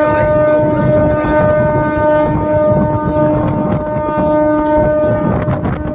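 MEMU electric train's horn held in one long steady blast while the train runs, with running rumble and wind on the microphone underneath.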